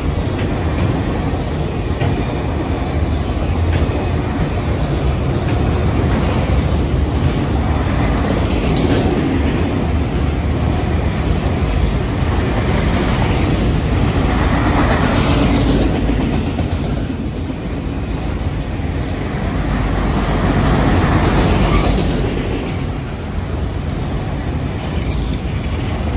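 Freight train's enclosed autorack cars rolling past at close range: a steady rumble of steel wheels on rail that swells and eases a few times as the cars go by.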